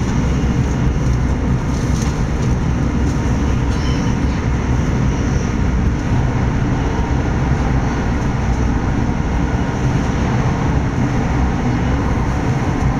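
Steady loud rumble inside the carriage of a Class 377 Electrostar electric multiple unit running at speed: wheels on rail and body noise, with no breaks or sudden events.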